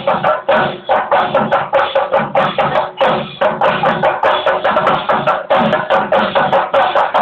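Chendamelam: a troupe of chenda drums beaten with sticks in a loud, fast, steady rhythm of about five strokes a second.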